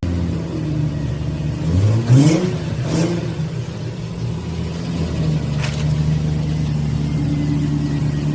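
Infiniti G35 coupe's V6 engine running, revved briefly twice about two and three seconds in, then settling to a steady run. The car sounds louder than it should because of a hole in the rear exhaust.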